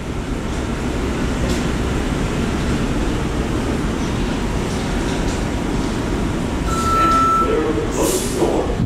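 New York City Subway 7 train standing in the station with a steady rumble from the car's equipment. About seven seconds in there is a single short steady beep, followed by a brief hiss of air.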